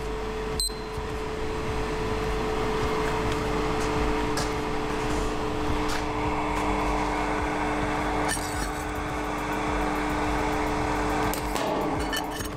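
Box-type tray hot-air dryer running, its circulation fan giving a steady whir with a low two-note hum that stops near the end. A short high electronic beep sounds about half a second in.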